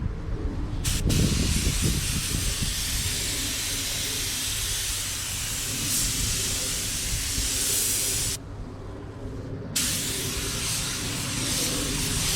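Compressed-air paint spray gun hissing in two long runs, broken for about a second and a half around eight seconds in, over a steady low hum.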